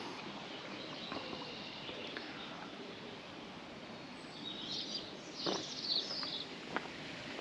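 Outdoor rural ambience with birds chirping in the second half, over a steady background hiss. A few light knocks come near the end.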